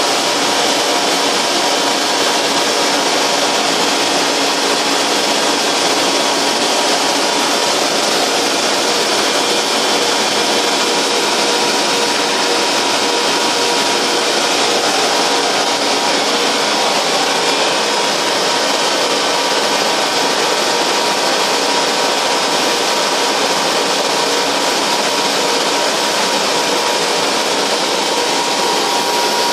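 SA-743 150-horsepower combination chipper-shredder running steadily, a dense mechanical rush with a steady high whine through it.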